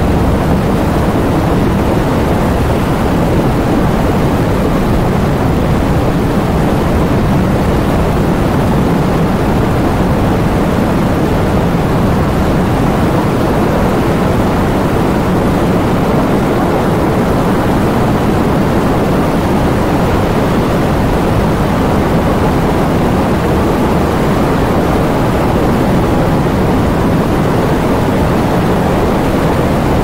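Heavy rain driven by wind: a loud, steady, deep rushing noise with no separate drops or gusts standing out.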